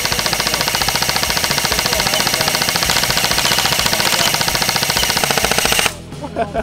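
Poseidon Hades airsoft electric gun (AEG) firing a long, fast, even stream of shots. The 5-round burst mode is being triggered again and again so quickly that it runs together as full-auto fire, emptying the magazine. The firing stops suddenly near the end.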